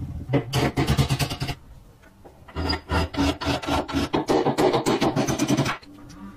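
Rusted metal parts of a rotary grater scraping and grating against each other as it is taken apart, in two bouts of rapid, scratchy metal-on-metal rasping, the second about three seconds long.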